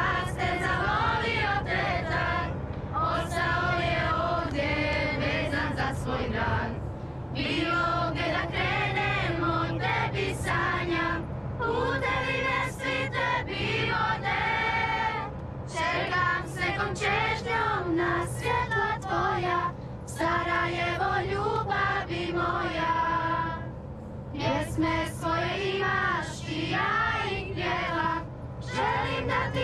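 Song about Sarajevo playing as background music: singing voices in long phrases over steady instrumental backing.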